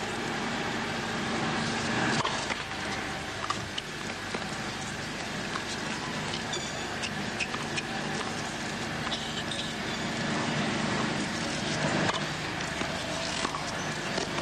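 Steady outdoor background noise of a tennis court between points: a spectator crowd murmuring over a constant hum, with a few scattered soft knocks.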